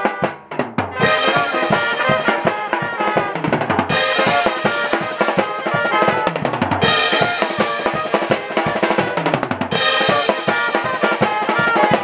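Brass street band playing: trumpets and other horns carry a melody over a drum kit beat with snare and bass drum. In the first second the horns drop out for a short drum fill, then come back in.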